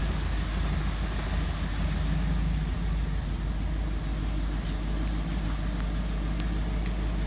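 1969 Mercury Cougar's V8 idling steadily and smoothly on its first run after sitting, with a new coil, points, condenser and plugs.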